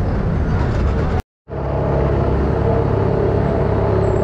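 Trams passing close by on street track: a steady rumble with the hum of the trams running under it. The sound drops out completely for a moment a little over a second in, then resumes.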